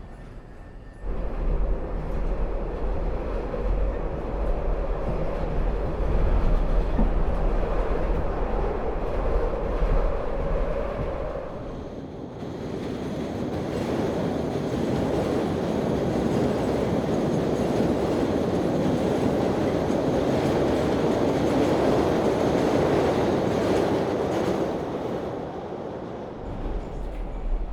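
Chicago L rapid-transit train heard from onboard, a steady low rumble and rattle of the car riding the track. About 12 s in it changes to a train passing by from outside, its wheel-and-track clatter swelling to a peak and fading away.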